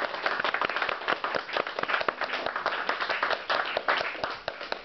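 Audience applauding, many hand claps close together, easing off slightly near the end.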